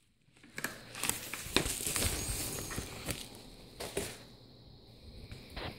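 A padded paper mailer envelope rustling and crinkling as it is handled, with a few light knocks; the sound quietens about four seconds in.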